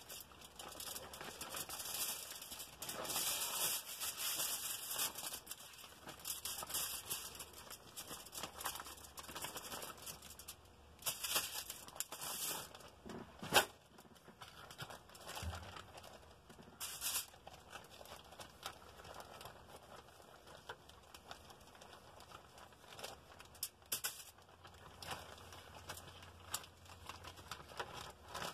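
A clear plastic zipper bag crinkles and rustles as a hand pulls marinated chicken drumsticks out of it and sets them on a foil-lined tray, with the foil crinkling too. Irregular rustles and clicks run throughout, with one sharp tap about halfway through.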